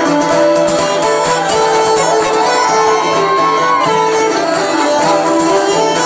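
Live Irish traditional band playing an instrumental break: fiddle and uilleann pipes carry the tune over a steady pipe drone, with plucked strings underneath.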